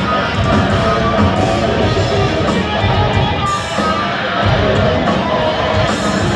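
Live heavy metal played loud by a full band, distorted electric guitars over bass and drums, with no vocals.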